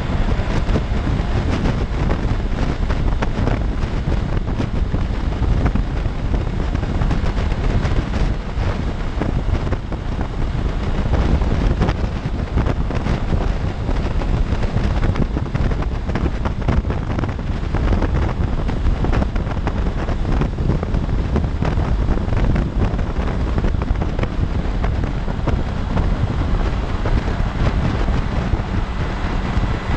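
Wind buffeting the microphone at freeway speed on a 2016 Honda CB500X, a steady rush with the motorcycle's parallel-twin engine and tyre noise running underneath.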